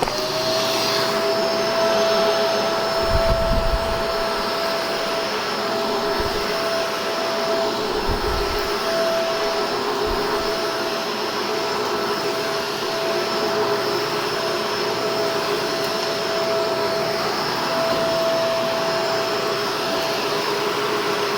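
Shark DuoClean vacuum cleaner running steadily, a high motor whine over the rush of suction, working normally after being cleaned out. A few low thumps come in the first half.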